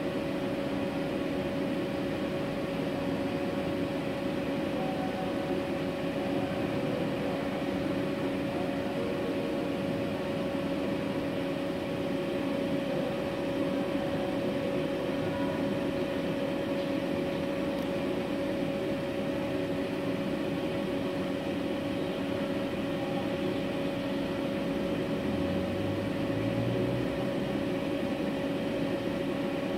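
Steady machine hum with a constant droning tone, unchanging throughout.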